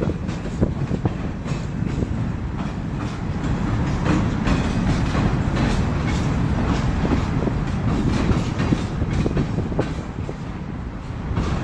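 A long train rolling past, its wheels clacking over the rail joints over a steady rumble.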